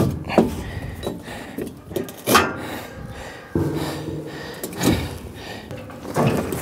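Scattered knocks and clanks of steel cattle-alley panels being fitted and pinned together, about five sharp strikes spread across a few seconds. A steady low hum runs for about two seconds in the middle.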